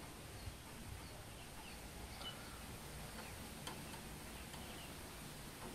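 Quiet workshop background: a low steady hum with a few faint scattered ticks and several short, faint bird chirps.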